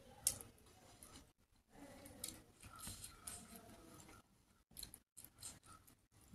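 Quiet eating sounds from a meal of rice and fish curry eaten by hand: a few sharp clicks and wet smacks of chewing and fingers working the food, with near-silent gaps between them.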